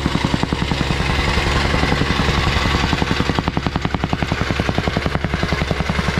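Gasoline jumping-jack rammer running at full throttle, its foot pounding loose dirt backfill in a fast, steady rhythm of about ten blows a second over the engine's drone: soil being compacted in a trench.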